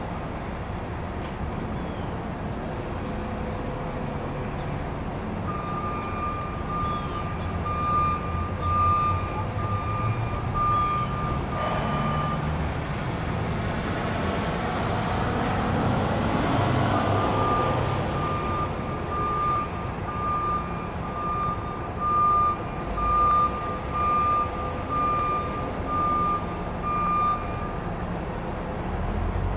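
Truck reversing alarm beeping about once a second over a steady low engine rumble. The beeping stops for a few seconds midway while a louder rushing noise swells and fades, then it resumes.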